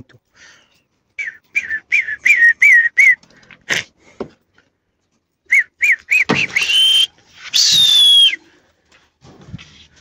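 A man whistling through his lips to drive young pigeons off a rooftop into flight. First comes a quick run of short chirping whistles that rise and fall in pitch, then a sharp click, then a few more chirps, and finally two longer, louder breathy whistles: the first rising, the second higher and falling away.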